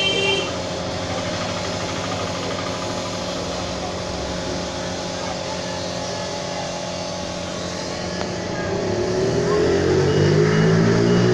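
A motor hums steadily; about nine seconds in its pitch rises and it grows louder, as if speeding up.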